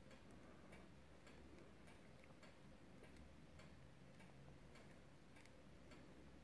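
Faint, irregular clicks of plastic calculator keys being pressed one after another on a Casio fx-82 Solar II.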